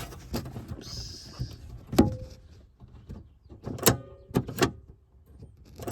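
Porsche 911 G-body door latch and lock mechanism worked by hand: a few sharp metallic clicks and clunks as the latch parts move, the first about two seconds in with a short ringing tone, more near four seconds and at the end.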